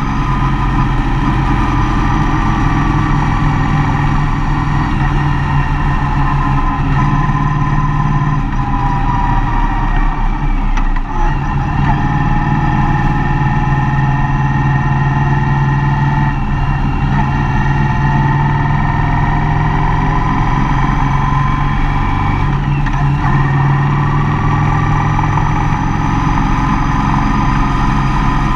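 Mercedes-Benz Vito van's engine running steadily while driving, with road noise. The engine sound drops briefly about eleven seconds in, then carries on.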